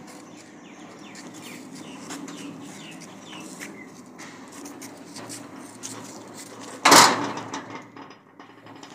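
Stainless steel sliding gate rolling along its ground track on a bottom wheel with a steady low rumble, then a loud clang about seven seconds in as it meets the wall post, ringing away over about a second.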